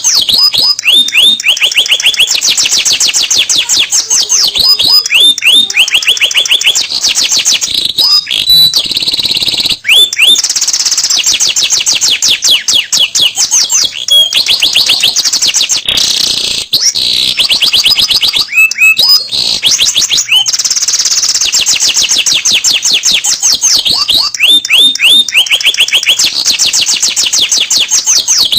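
Domestic canary singing a long, continuous song of rapid high trills and rolls, changing to a new trill every second or two with hardly a pause. Some notes sweep steeply downward.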